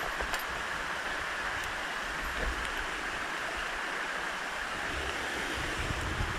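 Steady rush of flowing canyon water, an even hiss with no breaks.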